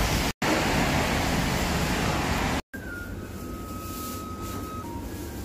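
Steady, dense street noise that drops out briefly twice. After the second drop-out, a quieter indoor background with a few held electronic tones from the touchscreen meal-ticket machine.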